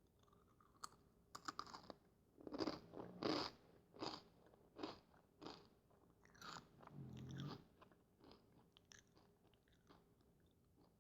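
Fritos corn chips bitten and chewed close to the microphone. Loud crunching comes about two to three seconds in, then steady rhythmic chewing that fades away near the end.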